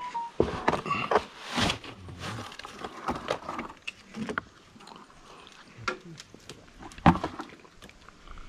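Irregular knocks, clinks and scrapes of masonry work: a bucket of mortar lifted onto a concrete block wall and mortar being worked on a wooden scaffold board, with one sharper knock about seven seconds in.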